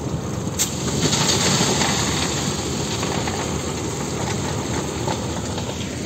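Heavy diesel machinery working: a wheel loader's engine running as it loads stone into a dump truck, a steady noise that grows louder for a second or two, with a sharp click about half a second in.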